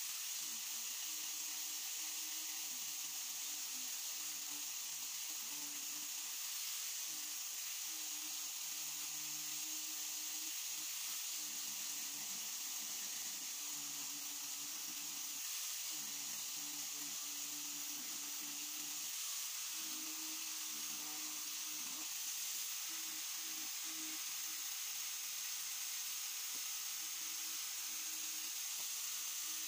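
Electric angle grinder with a sanding disc running steadily against the edge of a palochina pine board, a motor whine under the hiss of the abrasive on the wood, the whine wavering as the disc is pressed on and eased off.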